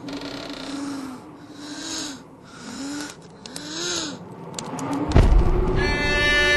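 Laboured, wheezing breaths with short low groans rising and falling in pitch, over a steady low drone. About five seconds in a deep boom hits, and music begins just after.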